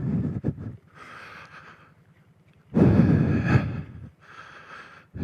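Kawasaki Brute Force 750 ATV throttled hard in two short bursts, at the start and again about three seconds in, as it is pushed over a fallen tree, with heavy breathing close to the microphone in between.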